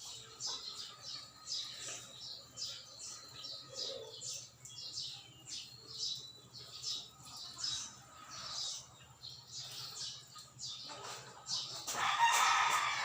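Birds chirping: many short high calls repeating several times a second, with a louder, rougher sound rising about eleven seconds in.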